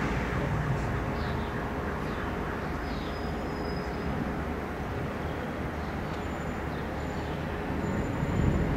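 Steady outdoor background rumble around railway tracks, with a few faint bird chirps; the rumble grows louder near the end.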